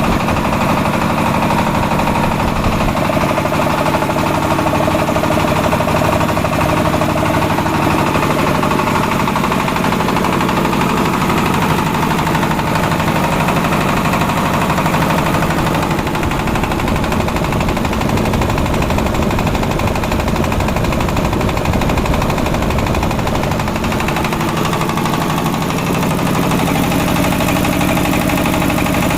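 Engine-driven piston air compressor running steadily: a Fumitsu 24 HP engine turning a 15 HP high-pressure pump, with a rapid pounding from the pump and engine.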